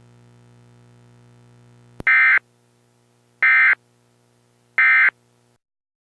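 Emergency Alert System end-of-message data bursts: three identical short, harsh digital tone bursts about 1.4 s apart, starting about two seconds in, which signal the end of the alert. Before them there is a faint steady hum, and a click just before the first burst.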